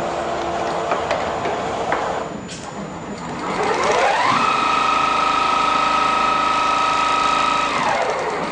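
Richpeace automatic industrial sewing machine running. About three and a half seconds in, its motor speeds up into a steady high whine while it stitches, then winds down near the end.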